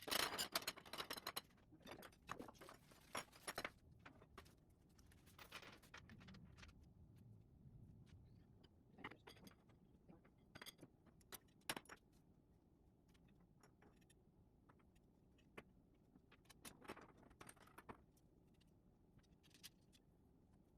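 Faint, scattered clicks and rattles of trellis pieces being handled and fitted together, busiest in the first few seconds and again near the end.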